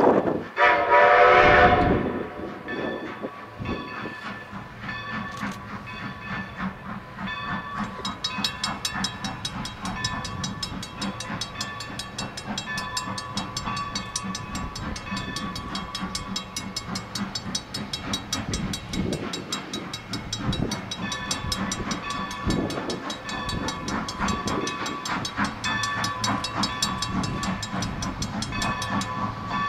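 Steam locomotive's chime whistle blowing one loud blast at the start, then the distant locomotive working steadily toward the camera, its exhaust beating in a fast, even rhythm.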